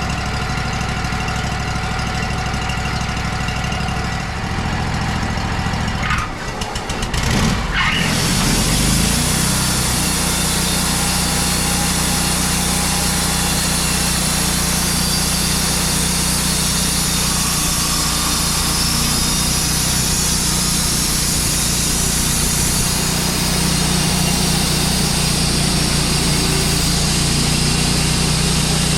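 Wood-Mizer portable sawmill's gas engine running steadily. About six seconds in it dips briefly, then revs up, and it runs on at a higher, steady speed.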